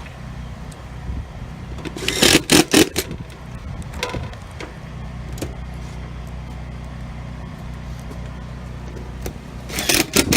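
An engine running steadily, with a few loud clattering knocks about two seconds in and again near the end.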